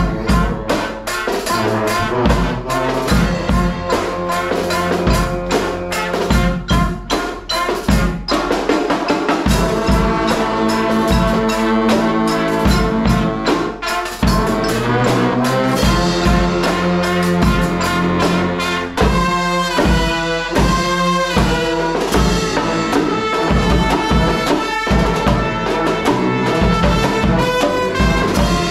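Live brass band playing: trumpets and trombone over a sousaphone bass line, driven by snare and bass drums. About two-thirds of the way through, the horns play a fast repeated figure.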